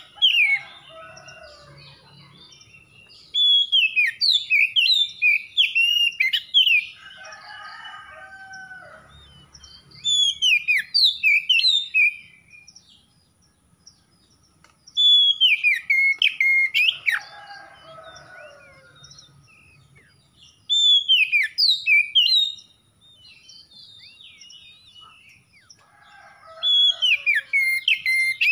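Oriental magpie-robin singing in bursts of a few seconds of rapid, varied whistled phrases, with pauses of a few seconds between the bursts.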